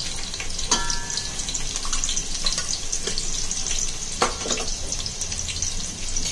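Chopped onion and cumin seeds sizzling steadily in hot oil in a cooking pot (a tadka). A few sharp knocks, the first one ringing briefly like a metal spoon against the pot, come about a second in and again past the middle.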